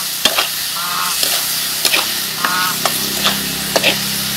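Chicken gizzards sizzling in oil in a wok while being stirred with a metal spatula, which clicks and scrapes against the pan many times. A few short squeaks recur every second or two.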